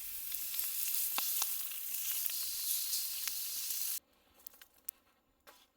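Thick-cut beef tongue steak sizzling and popping on a hot iron grill plate, cutting off abruptly about four seconds in; a few faint clicks follow.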